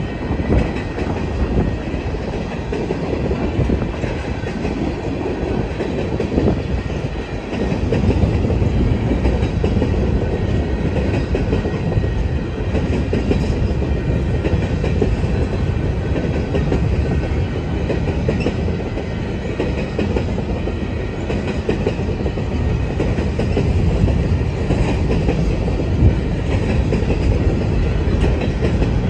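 Covered hopper cars of a grain train passing at speed: steady rumble of steel wheels on the rails with the clickety-clack of the wheels over the rail joints, a little louder from about eight seconds in.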